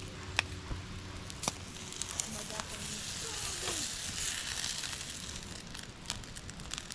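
Sizzling hiss with scattered sharp crackles, swelling in the middle and easing off again.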